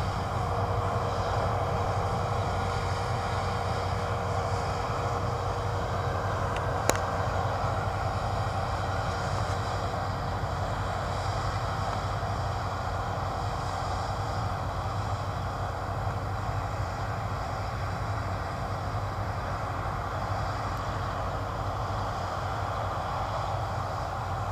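Massey Ferguson Cerea 7278 combine harvester threshing winter barley: a steady drone of engine and threshing machinery, slowly growing fainter as it moves away. One sharp click about seven seconds in.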